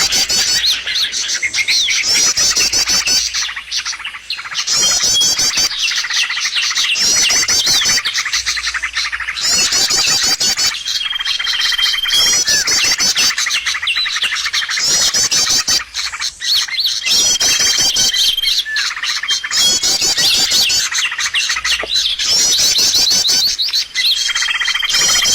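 Loud, dense chattering of many small songbirds, rapid chirps and trills overlapping without pause: a bird-lure (pikat) recording played to call wild birds in. A short, steady high whistle recurs about every six and a half seconds as the pattern repeats.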